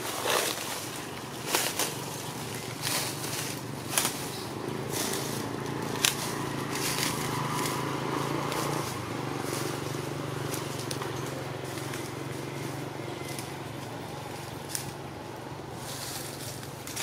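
Outdoor background noise with a steady hiss and scattered sharp crackles and clicks, with a faint low hum through the middle.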